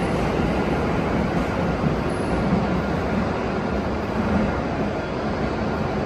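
A 521-series electric train pulling away from the platform: a steady rumble of wheels on rail and running gear.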